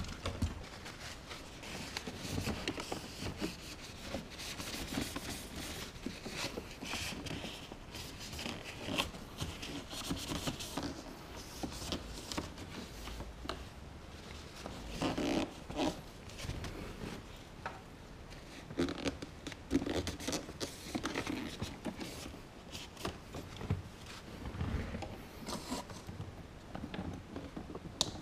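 Cleaning cloth wiping and rubbing over the car's plastic dashboard and console, a rough scratchy rustle broken by small clicks and knocks of handling.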